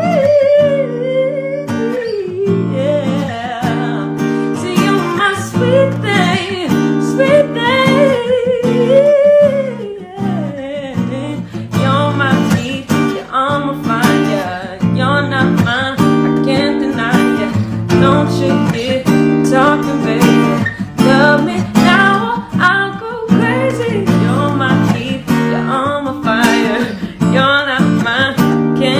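Background music: strummed acoustic guitar with a sung melody over it.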